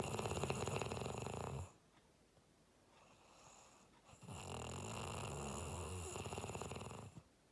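A person snoring: two long snores with a fast rattle in them. The first runs until about a second and a half in, and the second starts about four seconds in and lasts about three seconds, with a quiet stretch between.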